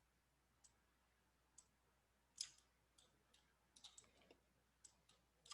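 Near silence with scattered faint computer mouse clicks, about ten short ticks, the clearest about halfway through.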